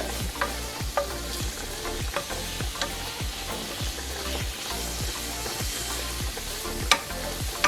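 Green onions, yellow bell pepper and mushrooms sizzling as they sauté in olive oil in a frying pan. A few sharp knocks come through, the loudest near the end.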